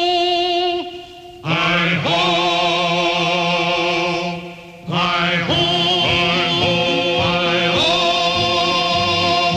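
Music with wordless singing voices holding long, wavering notes, briefly breaking off twice.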